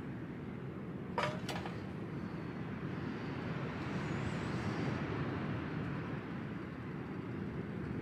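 Steady low rumble of strong wind buffeting the tent, with two sharp metal clinks about a second in as the kettle is set down on top of the kerosene heater.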